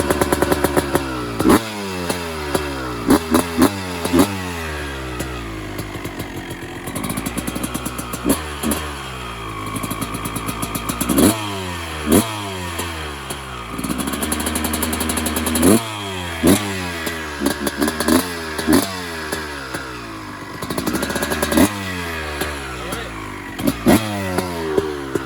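1996 Honda CR250's two-stroke single-cylinder engine being ridden on its break-in run after a full rebuild: revving up and backing off over and over, the pitch climbing under throttle and falling away every few seconds, with short sharp cracks in between.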